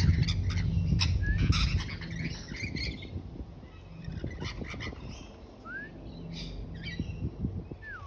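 Australian king parrot calling with short, sharp squawks, with a few brief rising whistles among them. A low rumble sits under the first couple of seconds.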